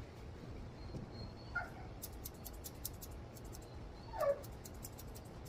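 Faint whimpering of a caged basset hound puppy: two short whines falling in pitch, about a second and a half in and again about four seconds in. Quick snipping clicks of curved chunker shears from about two seconds in.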